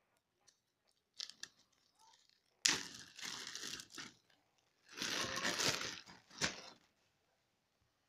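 Clear plastic zip-lock bag being pulled open and handled: a few small clicks, then two loud bursts of plastic rustling and tearing about two seconds apart, and a short crinkle after.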